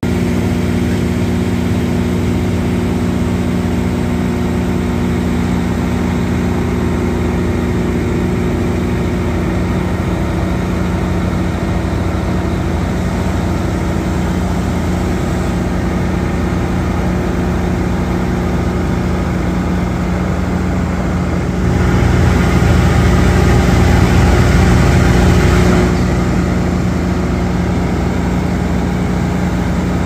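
Large machinery engine running steadily at a constant pitch. About three-quarters of the way through it grows louder and rougher for about four seconds, then settles back.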